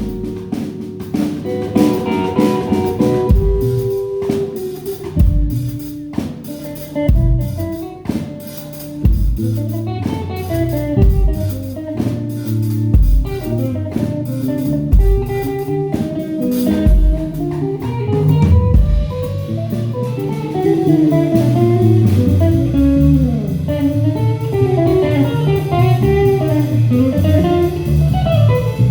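Instrumental music: a guitar plays a melody over a bass line and a drum kit, in a bluesy style.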